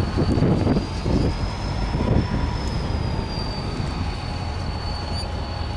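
Diesel locomotive running as it moves slowly with a string of tank cars, a heavy low engine rumble that surges unevenly in the first couple of seconds. A thin high-pitched tone runs over it, rising slightly and falling back about two seconds in.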